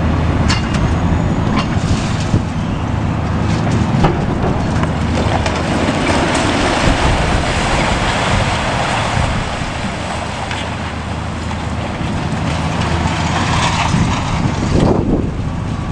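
High-reach demolition excavator's diesel engine running under load while a section of a concrete building collapses, with a continuous rumble and clatter of falling concrete debris, densest around the middle.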